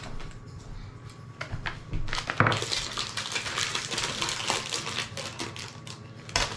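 Plastic toy wrapping being crinkled and pulled apart by hand: a dense run of small crackles that starts about two seconds in and goes on almost to the end.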